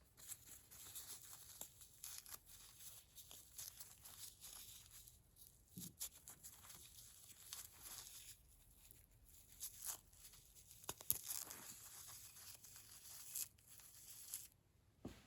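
Faint rustling and scraping of packing foam being pulled and torn out of a box, with scattered light clicks and taps from handling.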